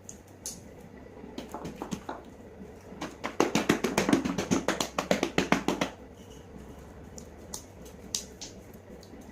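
Sticky homemade slime being stirred and kneaded by hand on a tabletop, making wet clicking squelches, scattered at first and then a fast, louder run of them from about three to six seconds in.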